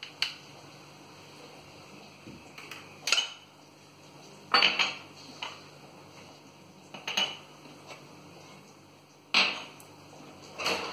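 A spoon clinking against the steel tins of a spice box, a sharp clink every second or two as spoonfuls of spice powder are scooped out and tipped into a bowl.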